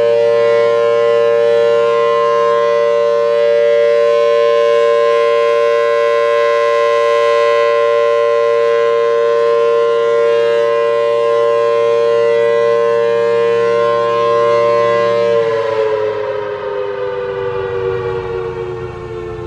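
Federal Signal Thunderbolt 1000T civil defense siren with a 4/5-port chopper and C-series blower, sounding a steady two-tone major-interval chord on a full alert. About fifteen seconds in it winds down, both tones sliding lower in pitch as it grows quieter.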